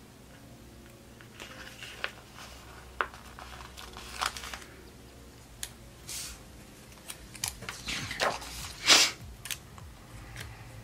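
Paper planner pages being handled and shifted on a desk: a series of rustles, crinkles and sharp clicks, with the loudest rustle near the end as a page is pulled loose and moved.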